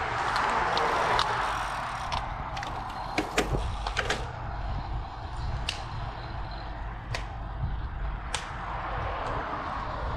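Road bicycles setting off: a rush of wind noise over the first two seconds, then scattered sharp clicks and knocks over a steady low rumble.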